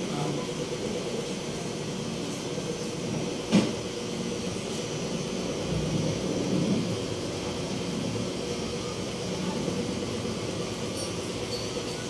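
Steady mechanical hum with a faint constant tone, and a single sharp click about three and a half seconds in.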